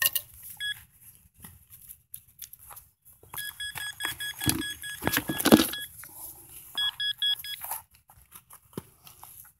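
Nokta pinpointer giving rapid short beeps, about five a second, in two runs with a pause between, signalling buried metal close to its tip in the dug hole. Gloved hands scrape and rustle in soil and grass, loudest in the middle.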